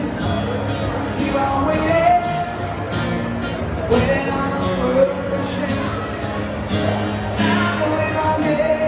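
Live pop-rock music: a singer over guitar with a steady drum beat.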